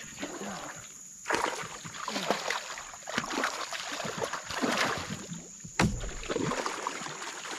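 A hooked fish thrashing and splashing at the surface right beside a kayak as it is reeled in, with irregular bursts of splashing and one sharp knock about six seconds in. A steady high-pitched whine sits underneath.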